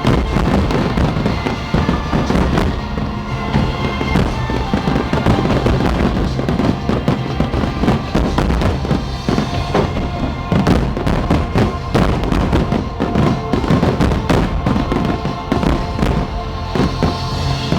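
Fireworks finale: a rapid, continuous barrage of bursts and crackles, with music playing underneath.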